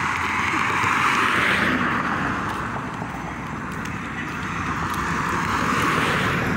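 Cars driving past on a concrete highway, their tyre and engine noise swelling as one passes about a second in and another near the end.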